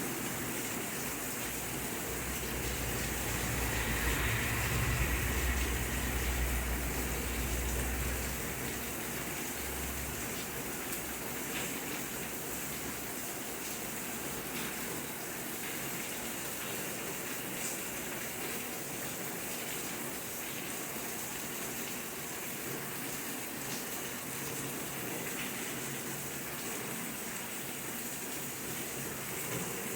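Steady rain falling as an even hiss. A low rumble sits under it for the first eight seconds or so, then fades out.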